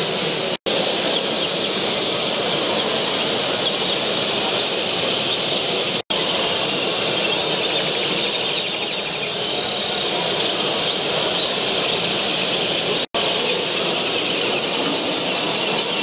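Dense, steady chirping and twittering of many caged canaries singing together. It drops out to silence for an instant three times.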